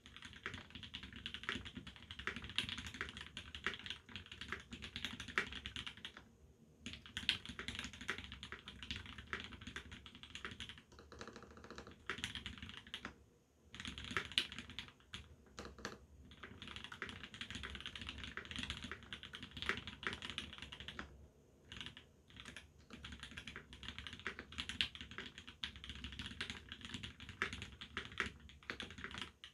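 Fast typing on a TX87se mechanical keyboard with a brass plate, lubed C³ Tangerine R2 linear switches and GMK ABS keycaps: a dense run of keystroke clacks, broken by a few short pauses.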